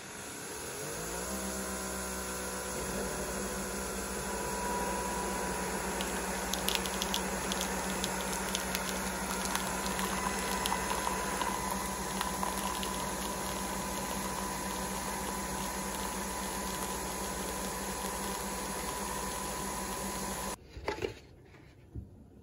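Coffee machine brewing into a mug: a steady mechanical hum with a rising whine as it starts, coffee streaming in, then it cuts off suddenly near the end, followed by a couple of short knocks.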